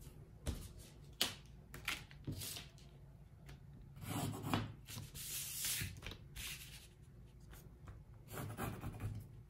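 Pencil marking on pattern paper, and a plastic pattern-drafting ruler laid down and slid across the paper: short taps and scratches, then longer rubbing and scraping about four seconds in and again near the end.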